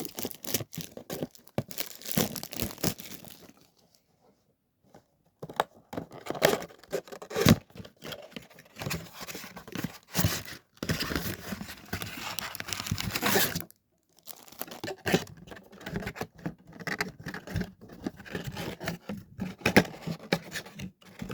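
A trading card box being torn open by hand: wrapping and cardboard tearing and crinkling in runs, with scraping and small clicks and a couple of short pauses.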